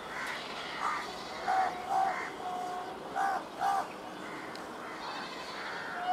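An animal calling: about six short, pitched calls, the loudest coming in two quick pairs.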